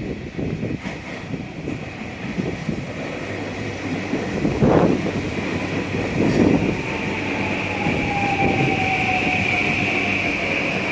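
Train running along the track, its wheels knocking twice over rail joints, with a whine that falls steadily in pitch in the second half. A steady high-pitched shrill grows louder toward the end.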